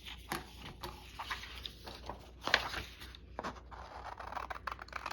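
Craft materials being handled on a tabletop: irregular small rustles, taps and clicks as pieces are moved and worked.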